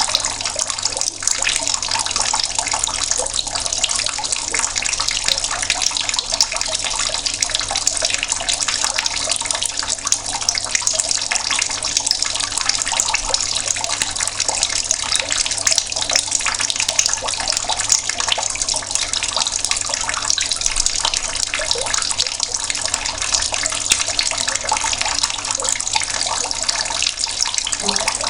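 Water running in a slow, steady stream from a tap and splashing, with an even hiss and fine splattering that does not change.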